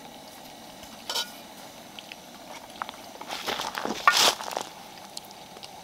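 A fork clicking and scraping on a metal camp plate as the bones are picked out of pan-fried trout: a single light click about a second in, then a louder spell of scraping and rustling about three to four seconds in.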